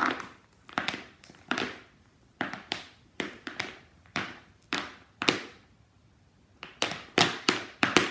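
Metal spikes of Nike baseball cleats clacking on a bare concrete floor as the wearer steps and stomps. It is a run of sharp, uneven clacks, a pause of about a second past the halfway point, then a quicker flurry near the end.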